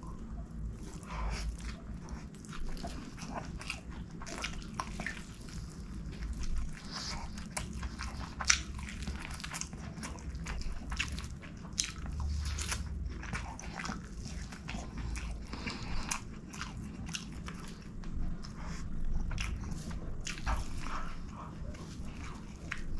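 Close-miked wet chewing, lip smacking and mouth clicks of a person eating rice and chicken by hand, with irregular sharp crunchy clicks and a single louder click about eight seconds in.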